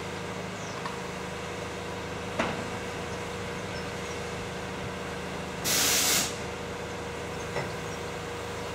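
Truck-mounted crane's diesel engine running at a steady drone. About two-thirds of the way in comes a short, loud hiss of escaping compressed air, and earlier there is a single sharp click.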